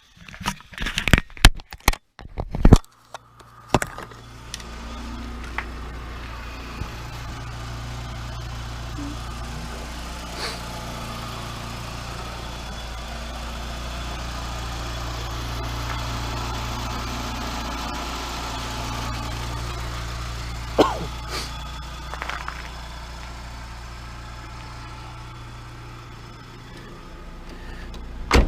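A burst of sharp knocks and clicks, then a car engine comes in about four seconds in and idles steadily, with a single click about two-thirds of the way through.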